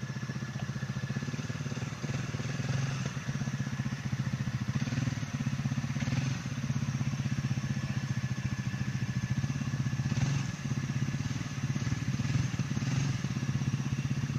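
ATV engine running steadily under way, its throttle easing off briefly a few times.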